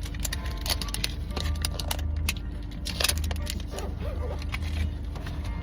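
Many small clicks and rattles, the loudest about three seconds in, over the steady low rumble of a car.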